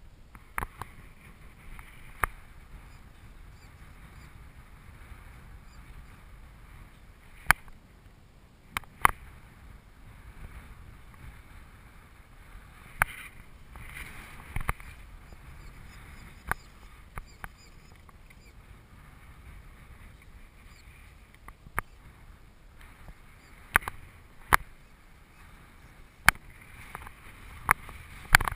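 Air rushing steadily over the microphone of a camera riding on a balsa RC slope glider in flight, with a dozen or so sharp clicks and knocks scattered through it.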